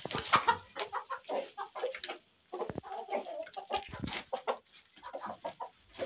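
A flock of chickens clucking: many short clucks from several birds at once, repeated closely.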